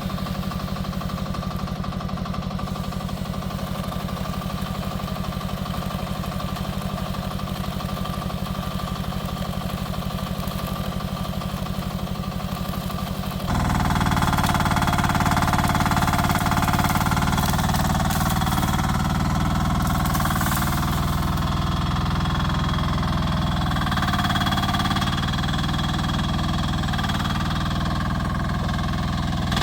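Rippa R10 mini excavator's engine running with a steady, even pulse. About halfway through it gets louder and a whine joins it, as the machine goes to work and stays at that higher level.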